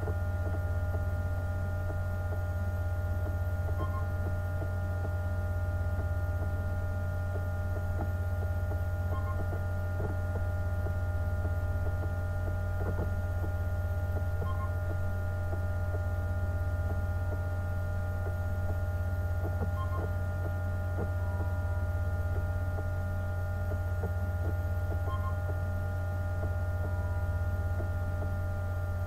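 Steady electrical hum, strongest low down, with several fainter steady higher tones over it and a faint short double blip about every five seconds.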